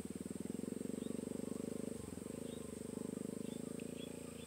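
Frogs calling in a fast, continuous low trill, with a few faint short chirps higher up and a steady high-pitched whine.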